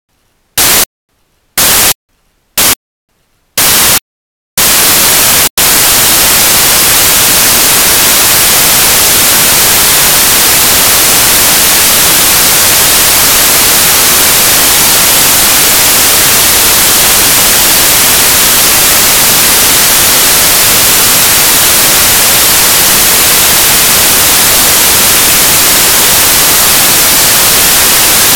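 Loud hiss of electronic static, like white noise. It cuts in and out in four short blasts over the first few seconds, then runs on continuously with one momentary break.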